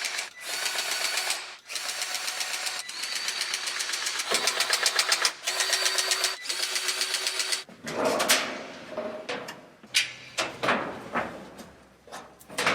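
Cordless grease gun pumping grease into combine grease zerks, its small motor running in bursts of about a second each with a fast, even ticking. About eight seconds in the bursts stop and give way to scattered sharp clicks and knocks of metal handling.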